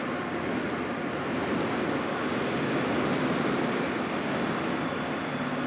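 Steady rushing, rumbling noise of a train running, even throughout with no distinct beats.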